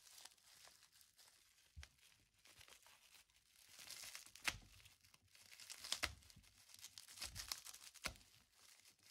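Bubble wrap around a plastic coin slab being cut and peeled with a folding knife: faint crinkling and tearing of plastic, busier after about three and a half seconds, with a few sharp clicks.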